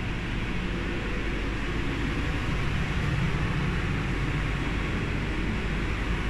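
Steady low rumble and hiss of a CRRC-built KTMB diesel multiple unit's running machinery, heard inside the coach.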